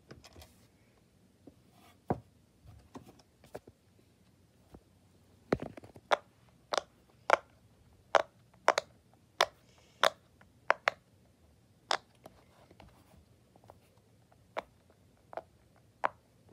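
Fingers pressing the silicone bubbles of a pop-it fidget toy, making a series of sharp pops at an uneven pace of roughly one or two a second. The pops begin about five seconds in, after some faint handling clicks.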